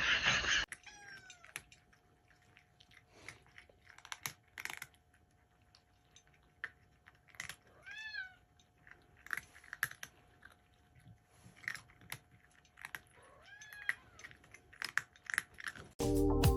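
A cat meowing three times, short calls that rise and fall in pitch, spread several seconds apart, among faint scattered clicks.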